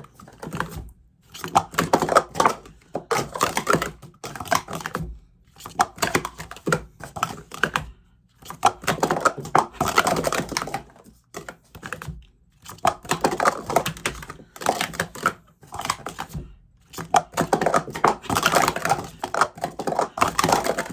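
Speed Stacks plastic sport-stacking cups being rapidly stacked and unstacked, a fast clatter of cups clicking against each other and the table, in bursts of a second or few with short pauses between them.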